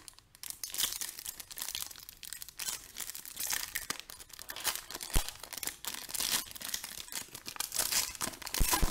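Foil wrapper of a Panini Optic trading card pack crinkling and tearing as it is ripped open and handled by hand. Two sharper knocks, about five seconds in and near the end.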